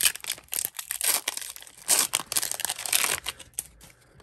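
A Pokémon booster pack's foil wrapper being torn open and crinkled by hand: a dense run of sharp crackles that thins out near the end. The wrapper is a tough one to get open.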